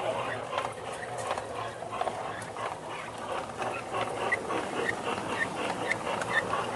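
G-scale garden railway train running along the track, its wheels clicking. From about four seconds in, a short high squeak repeats about twice a second.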